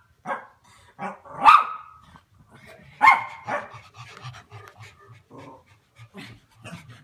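Dogs at play: a few short, loud barks in the first three seconds, then quick rhythmic panting.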